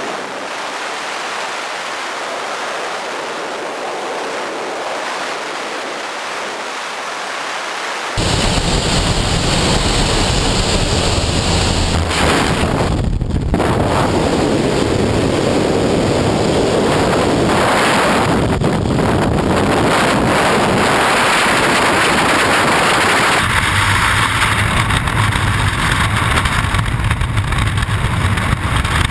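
Freefall wind rushing over a skydiver's helmet-camera microphone: a steady loud noise that jumps louder and deeper about eight seconds in.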